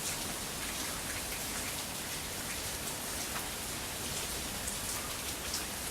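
Steady rain falling, an even patter with many small drop ticks. No thunder is heard.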